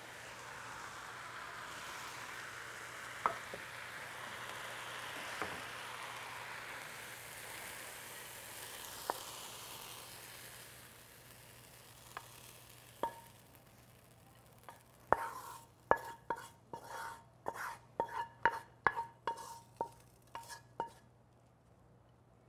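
Shredded potato stir-fry sizzling in a wok, with a few sharp clicks of a wooden spatula; the sizzle fades out. About two-thirds of the way in comes a quick run of ringing knocks, about two a second, as the wooden spatula scrapes and knocks the potatoes out of the wok onto a plate.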